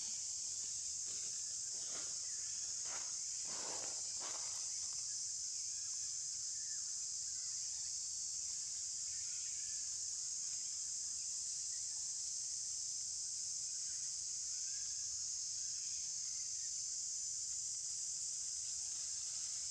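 Steady high-pitched drone of insects, with a few faint brief noises between about one and five seconds in.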